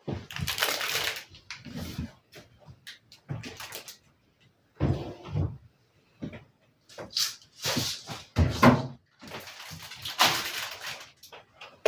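Kitchen cupboard doors opening and shutting, with irregular knocks and rustling of plastic packaging as groceries are put away.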